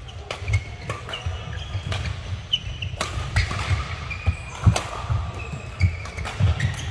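Badminton rally: sharp racket-on-shuttlecock hits every second or so, with shoes squeaking on the court floor and footfalls thudding as the players move and lunge.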